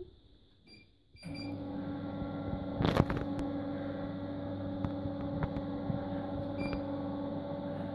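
Electric motor of a motorized roll-down projection screen running steadily as the screen lowers, a steady hum that starts about a second in, just after a couple of short faint beeps. A single knock sounds about three seconds in.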